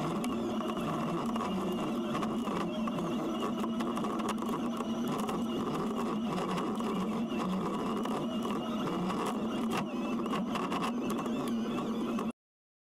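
A Kubota SVL97-2 compact track loader running a disk mulcher: a steady, busy mechanical whir with many sharp ticks through it. It cuts off suddenly just before the end.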